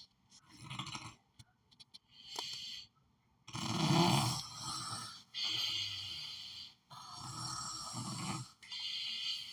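A person snoring: a run of breaths in and out, each about a second and a half long, growing louder about a third of the way in.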